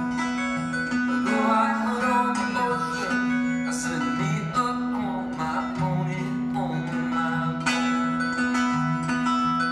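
Two acoustic guitars played together in a live duet, with held low notes under picked notes higher up.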